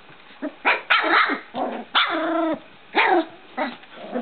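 Three-week-old puppies barking and yipping in play: a string of short high yaps, with one longer yelp about two seconds in.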